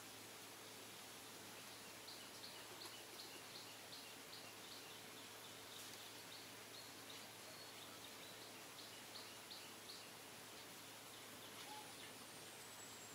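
Near silence: faint outdoor ambience with a steady hiss, and a faint high chirp repeated about three times a second from about two seconds in until about ten seconds in.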